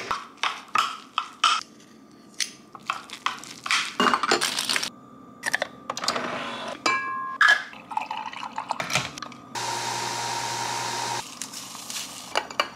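Kitchen clatter: quick clicks and short beeps as a microwave keypad is pressed, then a cup and a coffee capsule being handled. About three quarters of the way in, a Nespresso coffee machine runs with a steady whir for about a second and a half.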